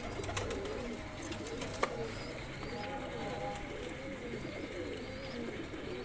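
Domestic pigeons cooing, a continuous run of overlapping wavering coos from several birds. A single sharp click about two seconds in.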